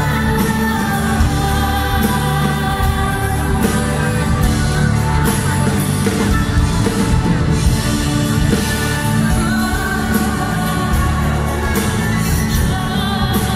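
A female vocalist sings a pop ballad into a microphone, backed by a live band and string orchestra, with the sound amplified over a PA and heard from within the audience.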